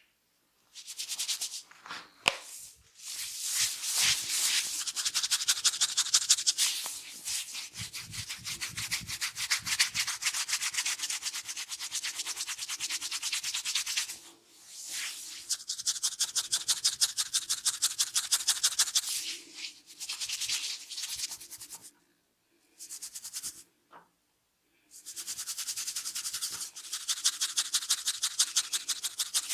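Hands rubbing fast and rhythmically over hair and scalp in a head massage, a dry scratchy rubbing that breaks off briefly a few times.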